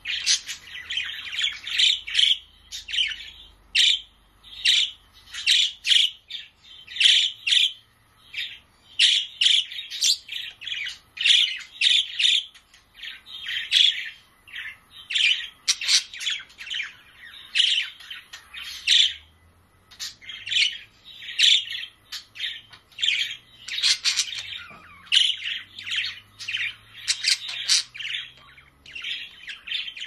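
Budgerigars chirping, a busy stream of short high calls several a second, with a brief pause about two-thirds of the way through.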